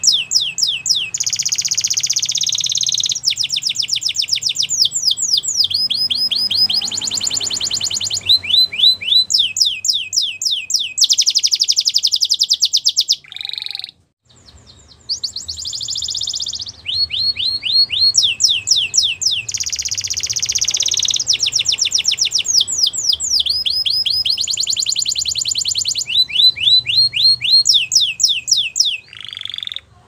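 Canary singing a long song of rapid trills, each a quick run of repeated high notes that switches to a new trill every second or two, with a brief pause a little before halfway.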